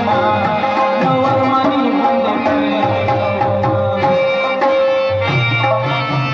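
Traditional folk music with tabla drumming under a sustained melody line, played loudly and without a break.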